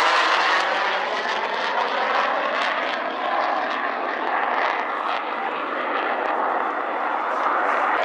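Jet noise from a McDonnell Douglas RF-4 Phantom II's twin J79 turbojets as the aircraft flies its display at a distance. It is a loud, steady rush with a shifting, sweeping tone in the first second, easing slightly in the middle and building again near the end.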